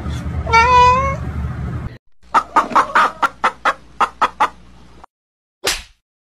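Hens clucking, a quick run of about nine short clucks. Before them comes a louder, slightly rising high-pitched call of under a second, and near the end one short harsh burst.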